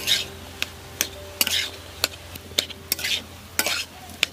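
A spatula stirring and scraping a frying vegetable and boiled-potato filling in a pan over a low sizzle, with a series of sharp knocks against the pan and scraping strokes between them.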